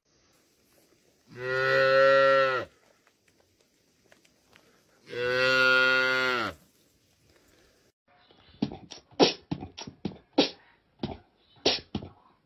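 A cow mooing twice, each moo a long, even call of about a second and a half. Near the end comes a quick run of sharp clicking beats.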